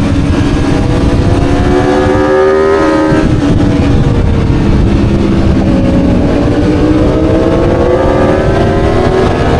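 Aprilia Tuono V4 motorcycle's V4 engine running hard on track. The revs climb, drop away about three seconds in, then rise steadily again through the second half as the bike accelerates.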